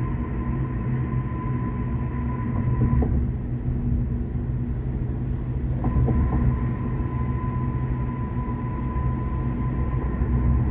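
Steady road and engine rumble of a car at highway speed, heard from inside the cabin, with a thin steady whine on top that drops out for about three seconds in the middle.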